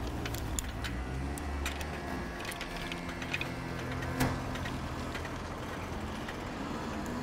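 Street traffic: car engines running and passing on a city road, a steady low hum with a few light ticks.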